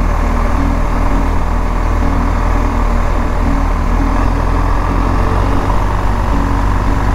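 Motorcycle engine running steadily while riding, its pitch shifting a little now and then, under a constant rush of wind and road noise.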